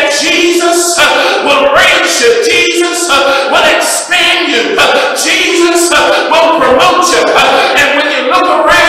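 A man singing into a handheld microphone, in long melodic phrases with held notes.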